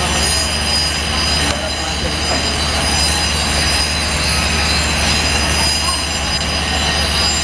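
Mobile flash butt rail welding machine and its power unit running with a steady low hum and a high whine over it.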